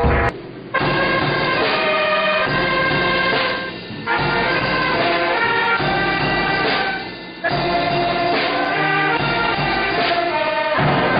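Brass band with saxophones playing a tune, the notes held in phrases with short breaks about half a second in, near four seconds and about seven seconds in.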